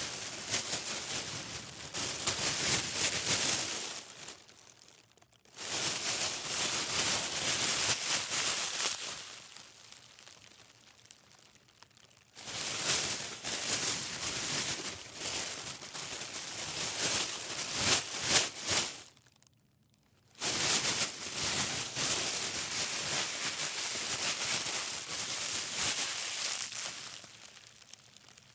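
Plastic grocery bag being crinkled and rustled in four bouts separated by short pauses, with a few sharper crackles late in the third bout.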